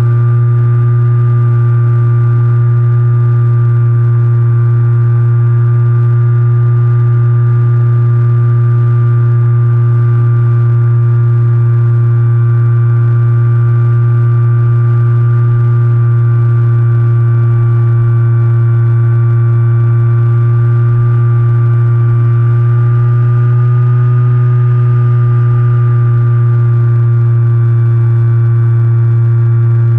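RC plane's motor and propeller heard from the onboard camera, running at a steady throttle as a loud, constant drone; its pitch lifts slightly about three-quarters of the way through, then settles back.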